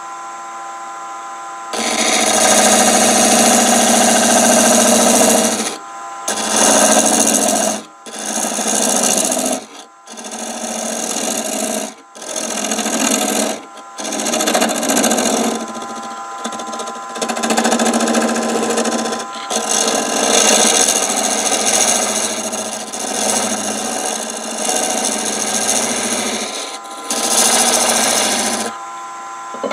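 Wood lathe spinning a small wooden workpiece while a hand-held turning tool cuts into its end, deepening a bored hole. The harsh scraping of the cut comes in repeated passes a few seconds long with short breaks, over the lathe motor's steady hum, which is heard alone for the first two seconds.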